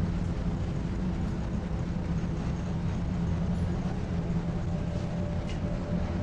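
City bus engine running, heard from inside the passenger cabin as a steady low rumble.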